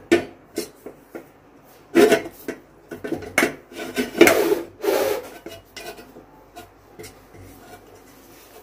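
A spatula scraping and knocking against the inside of a metal pot as hot caramel is spread over its bottom, in a run of short scrapes that are busiest and loudest in the middle and thin out toward the end.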